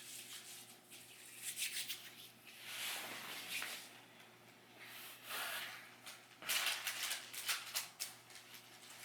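Intermittent rustling and rubbing handling noises, a series of irregular hissy scrapes coming and going.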